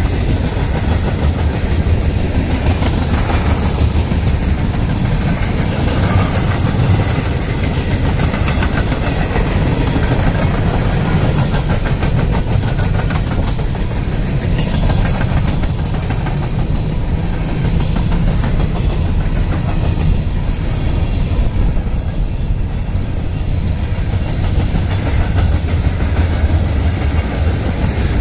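Freight train's hopper cars rolling past close by: a steady rumble of steel wheels on the rails, with a fast, continuous clicking from the wheels throughout.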